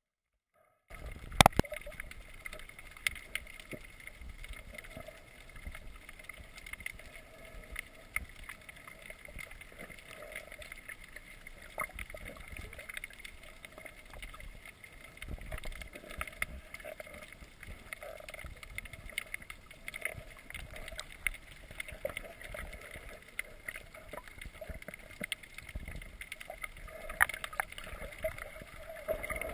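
Underwater ambience picked up by a GoPro in its waterproof housing: a steady muffled hiss with faint steady tones, dotted with scattered clicks and crackles. It starts abruptly about a second in with a sharp click.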